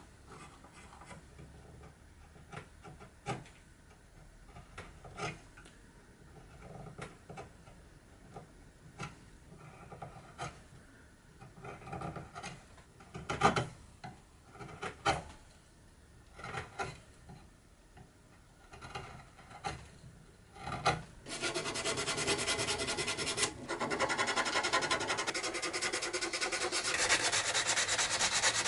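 A small carving gouge paring cherry wood in short, separate cuts, each a brief scrape or click. About two-thirds of the way in, hand sanding with a folded sheet of sandpaper on the carved cherry leg takes over as a steady, louder rubbing.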